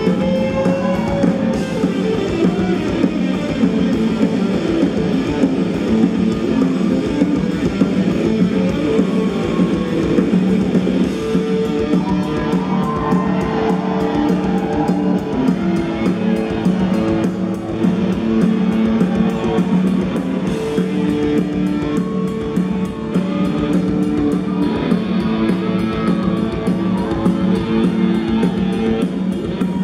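Live rock band playing on stage: electric guitars over a drum kit.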